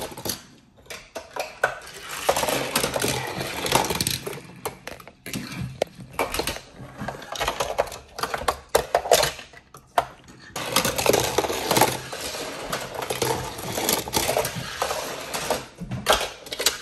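Die-cast toy cars clattering and rattling on a plastic Hot Wheels playset track: a dense run of small clicks and knocks of metal against plastic, with two short lulls.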